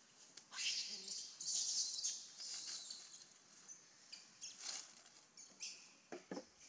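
Dry leaf litter rustling and crackling under a young macaque's hands as it forages, in irregular bursts, loudest in the first few seconds, with a short run of sharp crackles near the end.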